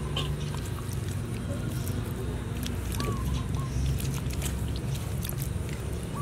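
Hands rubbing sauce into the scored skin of boiled pork belly on a wooden cutting board: soft wet rubbing with many small clicks, over a steady low background hum and a few short chirps.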